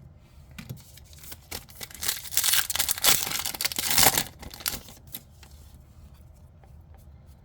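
Foil booster-pack wrapper of trading cards being torn open and crinkled. The tearing is loudest for about two seconds in the middle, with light clicks of card handling before and after.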